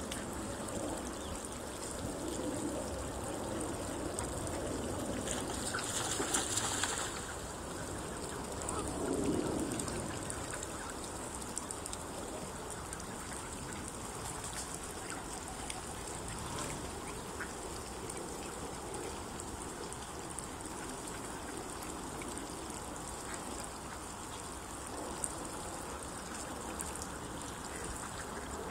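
Canada geese and other waterfowl feeding in shallow water, calling now and then, mostly in the first ten seconds, over a steady background of wind and water. A brief rush of noise comes about six seconds in.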